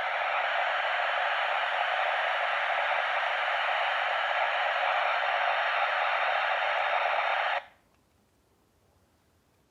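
A steady, even hiss like radio static that cuts off suddenly near the end, leaving near silence.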